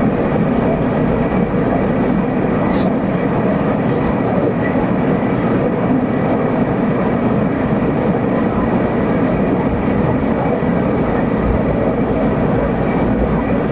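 Gas brazing torch flame burning steadily, a continuous rushing roar while refrigerant-line joints are brazed.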